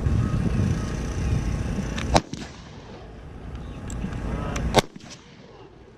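Two rifle shots about two and a half seconds apart, each a sharp crack, with a low rumble underneath that drops away after the first shot.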